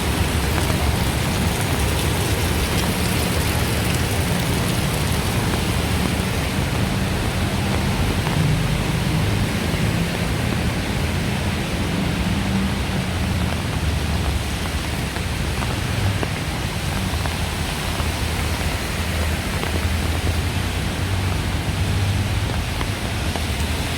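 Steady heavy rain, an even hiss throughout, with a continuous low rumble underneath.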